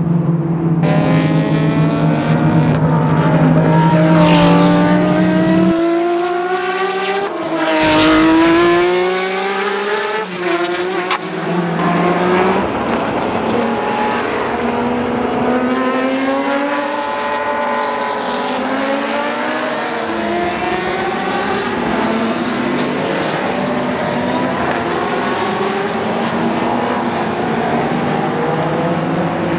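Historic touring race cars going past at racing speed, one after another and then in a pack, their engine notes sweeping up and down in pitch as they pass. The loudest close passes come about four and eight seconds in, and a steady low drone under them stops about six seconds in.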